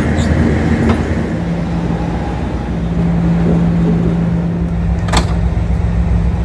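Class 56 diesel locomotive's 3250 hp Ruston Paxman engine running under way, a steady low engine note settling in about a second in. A single sharp click sounds about five seconds in.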